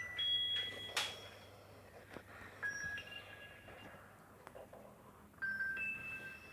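Nokia 6300 mobile phone playing a ringtone through its small speaker: a slow run of single high, clear bell-like notes, each held for about half a second to a second. A sharp click sounds about a second in.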